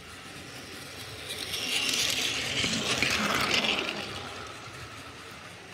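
Battery-powered Plarail toy shinkansen running past on plastic track: the small motor and the wheels on the track grow louder as it approaches, are loudest about two to three and a half seconds in, then fade as it moves away.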